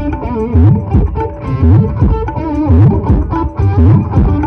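Loud music played through a large stacked speaker system during a sound-check display, with deep bass notes swooping about once a second under a wavering melody.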